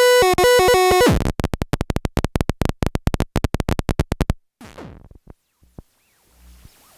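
Home-built NAND-gate square-wave noise synth: a buzzy held tone that breaks about a second in into a fast train of sharp clicks, which stop about four seconds in. A few faint falling sweeps and a low hum follow.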